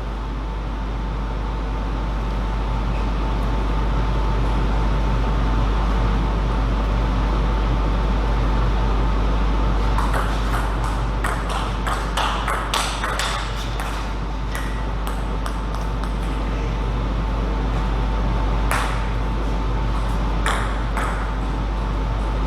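Table tennis ball clicks off bats and table: a quick run of hits about ten seconds in, then a couple of single hits near the end, over a steady low hum.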